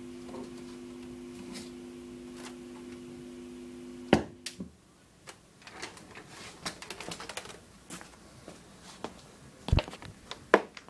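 A steady low hum that cuts off with a loud click about four seconds in, followed by a run of irregular sharp clicks and taps, two of them loud near the end.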